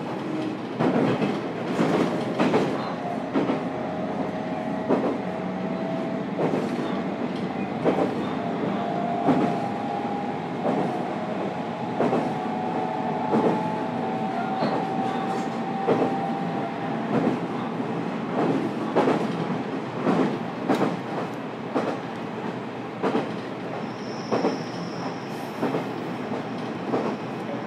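Interior running sound of a JR Kyushu 813 series electric train's motor car at speed, its wheels knocking over rail joints about once a second. Under the knocks run a steady rumble and a faint whine from the Toshiba GTO traction inverter and motors.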